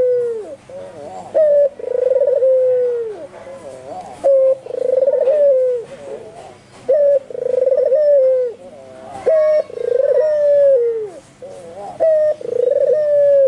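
Albino white Barbary dove (puter) cooing over and over, about five calls: each a short sharp note followed by a long rolling coo that drops away at its end.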